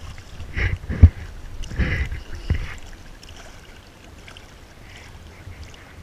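Shallow water sloshing and lapping over a rock shelf as a hand works in it, with a few low thumps around one and two seconds in, the loudest just after a second.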